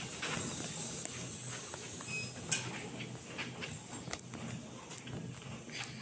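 Rustling handling noise from a phone being moved about, with scattered clicks and one sharp knock about two and a half seconds in.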